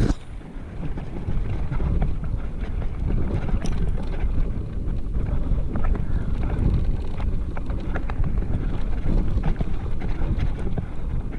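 Mountain bike riding fast downhill on a rough dirt trail: wind buffeting the camera's microphone, a steady low rumble, with the bike rattling and clicking over the bumps. The sound drops out briefly right at the start, then runs on.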